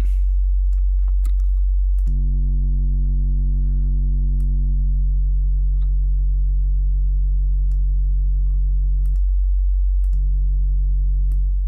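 A steady, deep synthesized sine sub-bass tone. About two seconds in, Bitwig's Saturator distortion adds a stack of overtones above it. The upper overtones thin out as the settings change, and the overtones drop away for about a second near the end before returning. Faint clicks are heard now and then.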